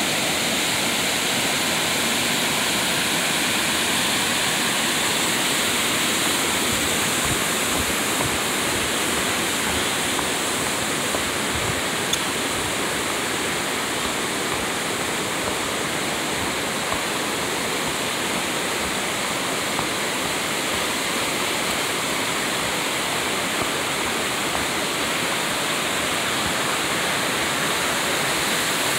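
Mountain stream rushing over boulders and small cascades, a steady, unbroken rush of water with a few faint ticks.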